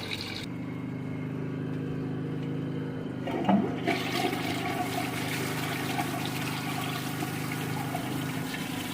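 Flush toilet rushing water as it flushes and refills over a steady low hum. The water rush swells about three and a half seconds in.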